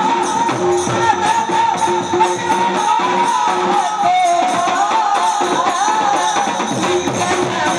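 A woman singing a Marathi folk-devotional song over a held drone note, with jingling hand percussion keeping a steady beat.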